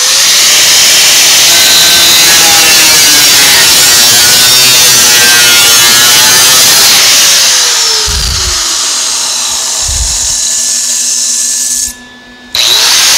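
Angle grinder grinding down butt welds on a sheet-steel fender, dressing the seam flush. It runs continuously, cuts out briefly near the end and spins back up with a rising whine.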